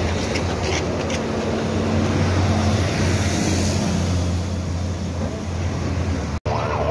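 A vehicle engine running steadily with a low hum, with traffic-like noise around it. Near the end, after a brief break in the sound, a wailing emergency siren starts, sweeping up and down.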